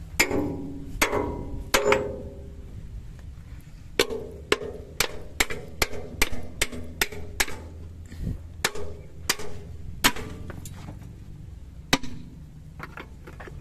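Metal pipe striking the steel tailgate latches of a dump truck body, knocking them loose so the tailgate can swing open for dumping. About twenty sharp, ringing clangs at an uneven pace, close to two a second in the middle stretch. Underneath is a steady low engine hum.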